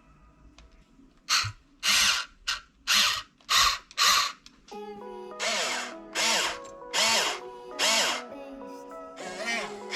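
Small electric gear motors of a Huina 1592 RC excavator whirring in short bursts of well under half a second, about a dozen in a row, as its functions are worked one command at a time. From about halfway, music plays under the bursts.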